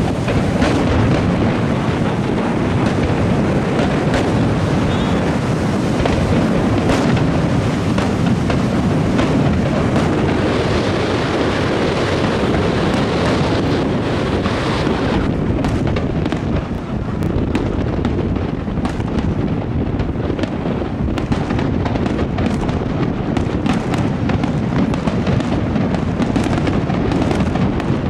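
Aerial fireworks display going off without a break: a dense rumble of shell bursts, with sharp crackles and pops growing more distinct from about halfway.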